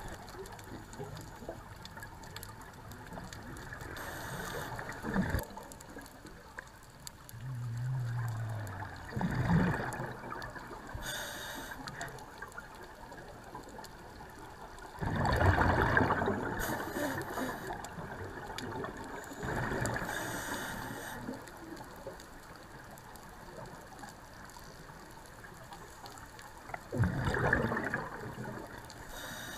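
Scuba regulator breathing underwater: exhaled bubbles rush out in a burst about every five seconds, between steady low water hiss, the loudest burst about halfway through.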